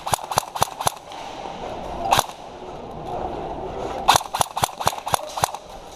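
Airsoft guns firing sharp cracking shots. A quick run of about four shots opens, a single shot comes about two seconds in, and a run of about six shots at roughly four a second falls near the middle to end.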